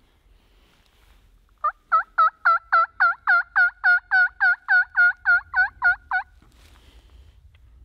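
A turkey hunter's mouth-blown call, sounded close up in a fast, even run of about seventeen short notes, roughly four a second, each dipping in pitch and rising again over a steady held tone.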